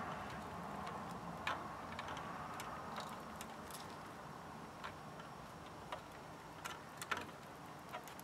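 Soldering iron and solder working the stepper-motor pin joints on a circuit board: a faint steady hiss with a dozen or so small, irregular clicks and crackles.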